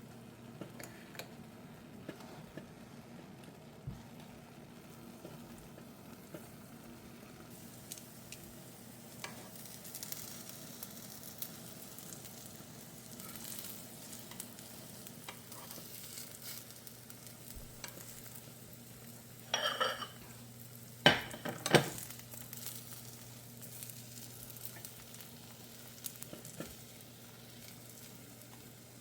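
Beaten egg sizzling gently in a frying pan while a utensil stirs and twists it into a tornado omelette, with small scrapes and ticks against the pan. About two-thirds of the way through come a few louder sharp clatters of utensil on pan. A steady low hum runs underneath.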